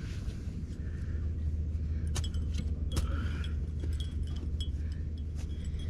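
Metal shovel striking in the ground while digging out a water meter and its PVC service line: a few sharp metallic clinks, each with a short ring, over a steady low hum.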